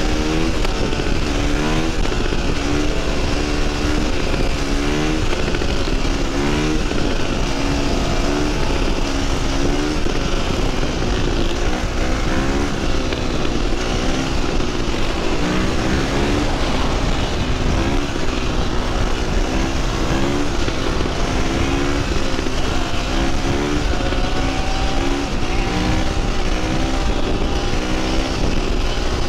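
Dirt bike engine on the open throttle, its pitch climbing and dropping again over and over as the rider works the throttle and gears at highway speed, with heavy wind noise on the microphone.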